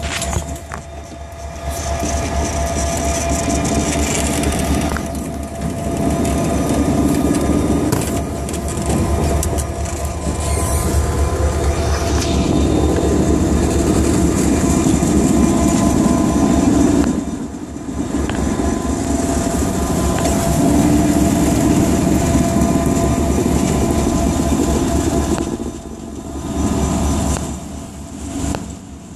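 Norfolk Southern freight train rolling by, its covered hopper cars rumbling on the rails and its diesel locomotive running, in a steady mix with brief dips in loudness.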